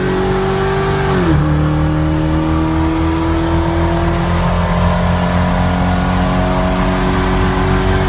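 Supercharged Toyota Tundra 5.7L V8 accelerating hard at high rpm, heard from inside the cab. Its pitch drops sharply about a second in as the automatic transmission upshifts, then holds high and climbs slowly as the truck keeps pulling.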